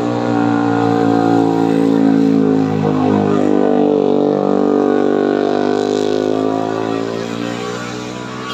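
A vehicle engine running hard under load on a steep uphill climb: a loud, steady drone whose pitch drifts slowly, easing off near the end.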